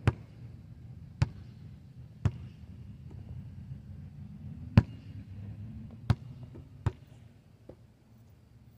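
Basketball bouncing on an asphalt court: about seven sharp single bounces at uneven spacing, the loudest a little under five seconds in.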